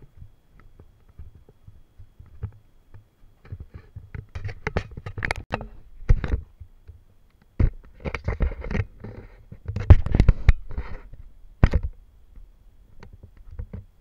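Handling and wind noise from a moving action camera's microphone: an irregular low rumble with scrapes and knocks as it jolts along a gravel path, the loudest jolts about six and ten seconds in.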